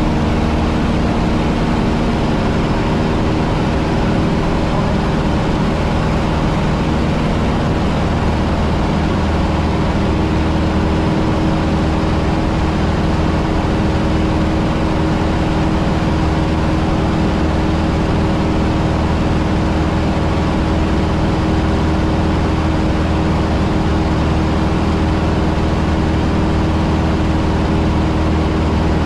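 Cessna 150's Continental O-200 four-cylinder engine and propeller running at a steady speed, heard from inside the cockpit.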